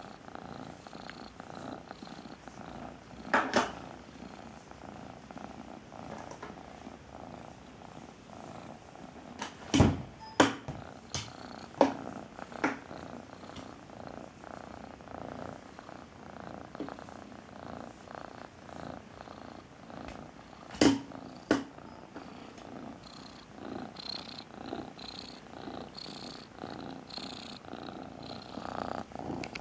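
Domestic cat purring steadily, heard close up. A handful of sharp knocks cut through it: once a few seconds in, several between about 10 and 13 seconds, and twice around 21 seconds.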